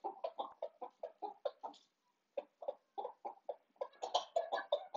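Chickens clucking in quick short notes while eating, several a second, with a brief pause about two seconds in and a faster run of clucks near the end.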